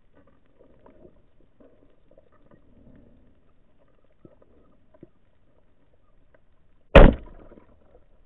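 Band-powered speargun fired underwater: one sharp, loud crack about seven seconds in, with a short fading tail, after a stretch of faint scattered underwater clicks.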